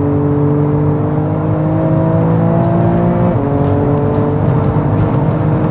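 Porsche 911 GT2 RS's twin-turbo 3.8-litre flat-six heard from inside the cabin as the car accelerates. The engine note rises steadily, drops sharply at an upshift about three seconds in, then climbs again.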